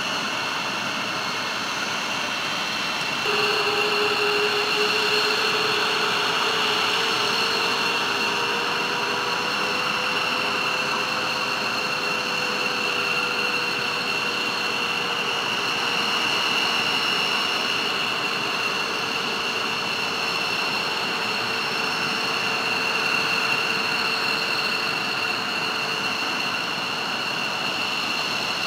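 Jet engines of a KC-10 Extender tanker (three General Electric CF6 turbofans) running steadily as it taxis, with a high steady whine over a broad rush. The sound jumps suddenly louder about three seconds in.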